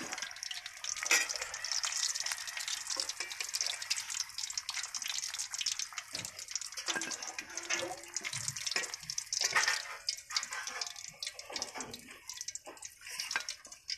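Hot oil sizzling and crackling in a steel kadhai as fried green-chili pakoras are lifted out with a slotted steel spoon. A few knocks of the spoon against the pan come through. The crackle thins out in the second half as the oil empties of fritters.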